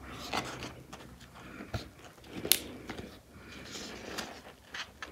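Handling of a cardboard box and its paper packing: a string of short crinkles and rustles with a few light knocks. The sharpest, loudest crackle comes about two and a half seconds in.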